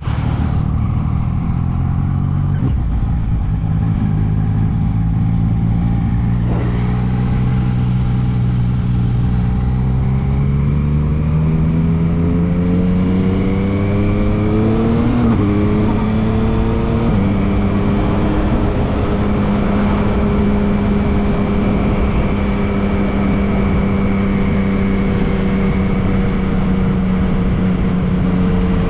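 Yamaha MT-09 motorcycle's three-cylinder engine running at steady low revs, then rising in pitch as the bike accelerates. It dips briefly about halfway through, then holds a steady higher note while cruising.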